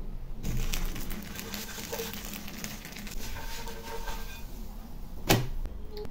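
Crackly rustling with many small clicks as a thick chocolate pancake is slid from a glass dish onto a plate, followed by a single sharp knock about five seconds in.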